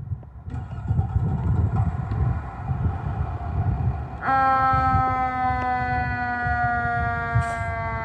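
Fire engine's warning devices sounding: a low rumble starts about half a second in, then just past four seconds a loud, steady siren tone cuts in and slowly sags in pitch.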